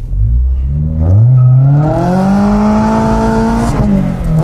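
Car engine revving hard under acceleration through an aftermarket exhaust with a modified mid-pipe. The pitch climbs steeply, holds flat for about a second and a half against the rev limiter, then dips briefly near the end and starts climbing again. It is cutting out early, around 4,000–5,000 rpm, because the engine is still cold.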